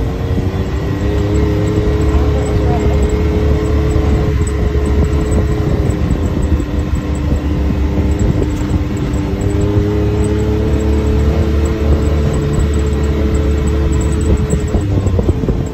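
Side-by-side UTV engine running at a steady cruise over a dirt road, with a heavy low rumble and a steady drone whose pitch eases down and back up a couple of times as the throttle changes.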